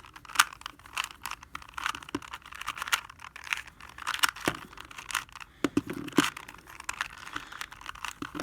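2x2 Rubik's cube being scrambled by hand: the plastic layers twisted in quick succession, giving rapid, irregular clicking and clacking.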